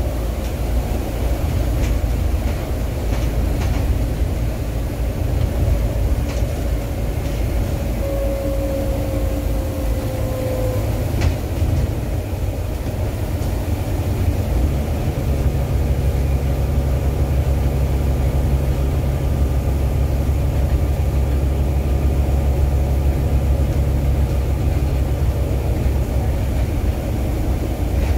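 Volvo B9TL double-decker bus heard from inside, running at speed: a steady low drone of engine and road noise with a faint whine that slowly falls in pitch and a few light rattles early on. The low drone grows heavier about halfway through.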